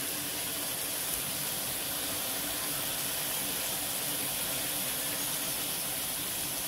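Rendang spice paste with shallots and chillies frying in oil in a wok, a steady sizzling hiss.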